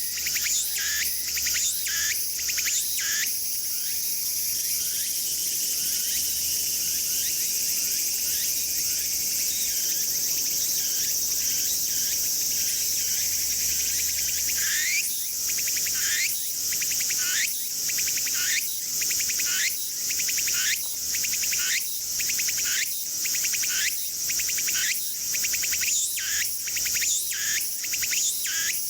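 Tsukutsukuboushi cicada (Meimuna opalifera) singing: a few pulsed notes, then a steady high buzz, then from about halfway its repeated rising 'tsuku-tsuku-boushi' phrases, roughly one and a half a second. A constant high insect drone runs behind it.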